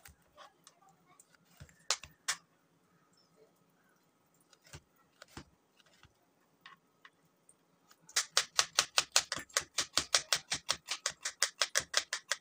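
Kitchen knife cutting carrot on a plastic chopping board: a few separate slicing taps, then about two-thirds of the way through a fast, even run of chops, about eight a second, as the carrot is finely diced.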